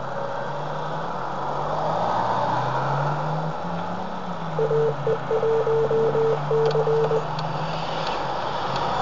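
Jeep Wrangler engine running, heard from inside the cabin, its pitch rising and then falling. About halfway through a car horn sounds in a string of short and long honks; this is the loudest sound.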